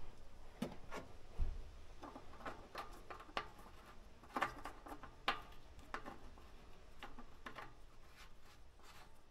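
Scattered light clicks and knocks of hands working on parts inside the machine, with a soft low thump about a second and a half in.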